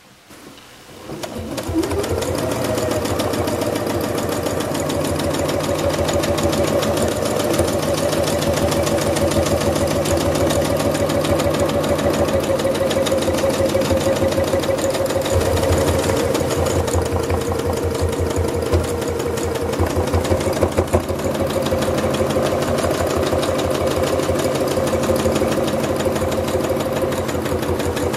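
Domestic sewing machine stitching fast for free-motion quilting, its needle and spring-loaded darning foot moving up and down in a rapid, even rhythm. It starts up about a second in and runs steadily, with a brief unevenness about two-thirds of the way through.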